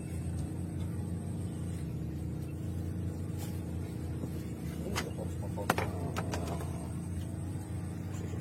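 A steady low mechanical hum, with a few sharp clicks about five to six seconds in.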